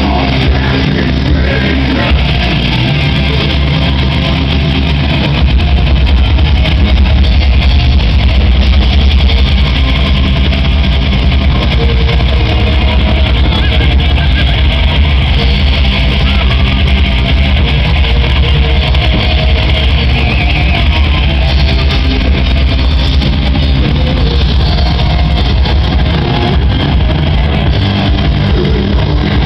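Live band playing loud rock through a PA: electric guitars over bass and drums. The low end gets heavier about five seconds in.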